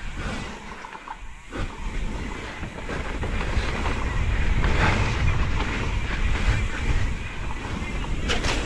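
Wind noise on the camera microphone over the rumble of a mountain bike rolling down a muddy dirt trail, growing louder about three seconds in.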